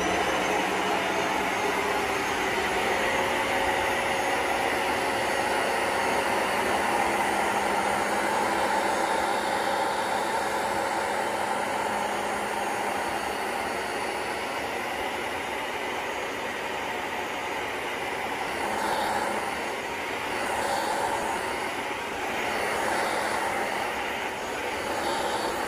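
BISSELL ProHeat 2X Revolution upright carpet cleaner running on a rug: the steady whir of its suction motor and brush roll. The sound swells and dips in the last few seconds as the machine is worked across the rug.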